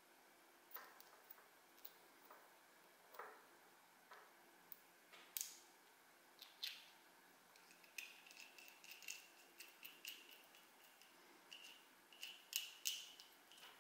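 Faint, scattered clicks and light metallic clinks of small parts of a 1cc two-stroke model engine being fitted into its aluminium crankcase by hand. In the last few seconds the clinks come closer together, with a faint ringing.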